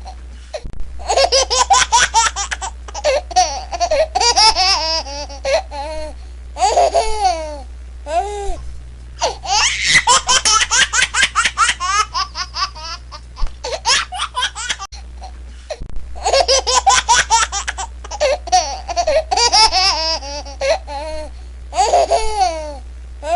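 A string of laughter sound effects: high-pitched laughing in rapid rhythmic bursts, one clip cutting to the next after short breaks, over a steady low hum.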